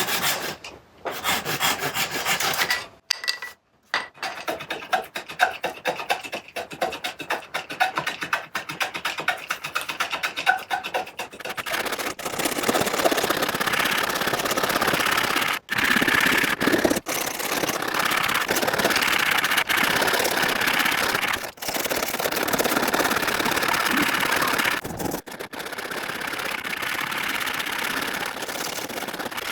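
Wooden chair leg being abraded by hand: rapid repeated rubbing strokes that, about twelve seconds in, become a steadier, more continuous rubbing, shaping down dried filler over the chewed damage.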